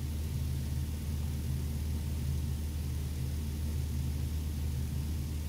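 A steady low hum with no clicks, knocks or changes.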